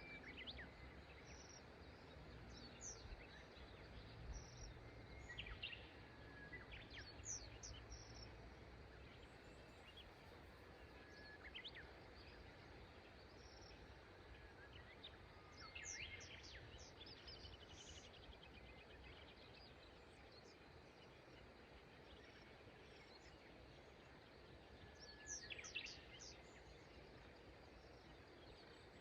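Wild birds calling in short clusters of quick high chirps every few seconds, over a faint steady rush of river water.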